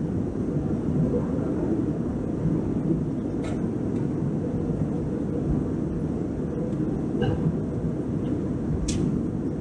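Steady low rumble of a passenger airliner's engines heard inside the cabin, with a couple of faint clicks.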